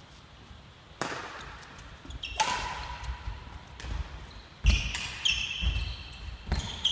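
Badminton rally: several sharp pops of rackets striking the shuttlecock, a second or two apart, with shoes squeaking on the wooden hall floor and the thud of footsteps, echoing in the hall.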